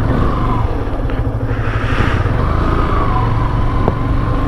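Motorcycle engine running at a steady cruise while riding.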